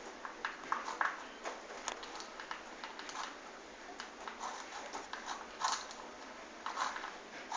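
A pet chewing and crunching dry kibble, with irregular short crunches a few times a second.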